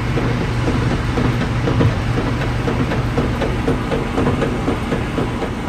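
Washing machine running: a steady low motor hum under a continuous churning, rattling clatter from the drum.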